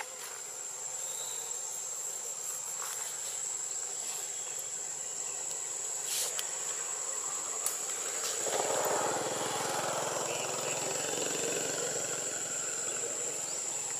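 Steady, high-pitched insect drone, one unbroken tone, with a few faint clicks. A broad rushing noise joins it about halfway through.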